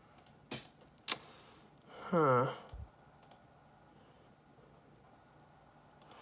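Two sharp clicks, then about two seconds in a short pitched sound that falls steeply, followed by a soft low thump, over a faint steady background.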